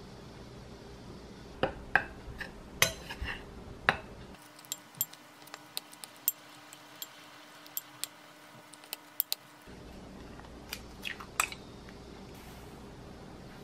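A metal spoon clinks and taps against a glass mixing bowl while flour and cocoa powder are stirred together, in sharp irregular strikes. The loudest taps come in the first few seconds, and a few more knocks come near the end.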